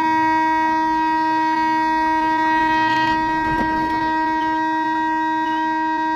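Vehicle horn held down in one long, steady, unbroken blast.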